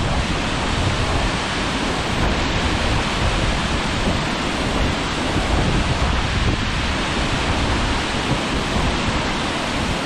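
Steady rush of river water pouring over a spillway, mixed with wind buffeting the microphone.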